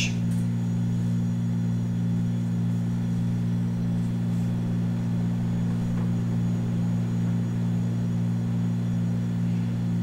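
A steady low background hum made of several constant low tones, with no other sound standing out.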